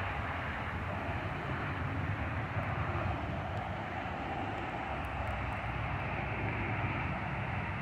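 Jet aircraft flying over: a steady rushing engine noise with a low rumble underneath.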